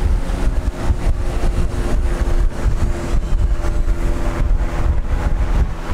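Strong wind buffeting the microphone, a constant low rumble that flutters in level, with a faint steady hum underneath.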